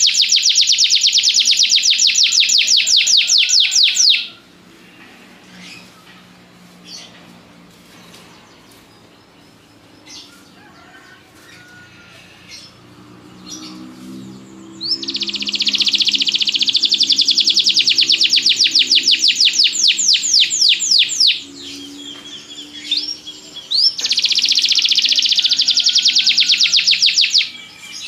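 Domestic canary singing in long, fast trills of rapidly repeated high notes: one at the start, another beginning about halfway through, and a third near the end, with quieter pauses holding a few single chirps between them.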